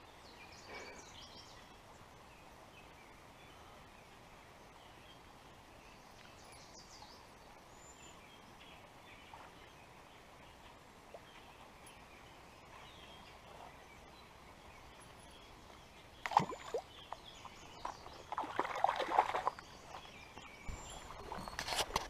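Quiet creekside ambience with a few faint, high bird chirps. About three-quarters of the way through, a sharp knock, then a couple of seconds of close handling noise from the angler's hands and fishing gear, and a sharp click near the end.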